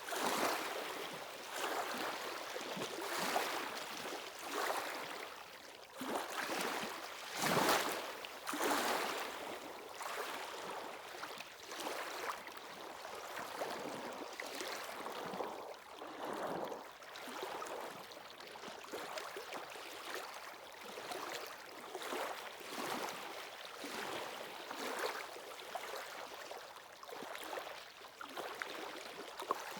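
Waves washing onto a shore in quick, uneven surges of rushing water, with a bigger wash about seven to nine seconds in.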